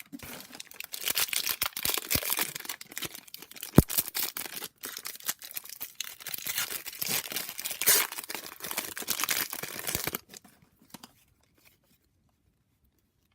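A trading-card pack's wrapper being torn open and crinkled: a dense crackling for about ten seconds, with one sharp click about four seconds in, then it stops.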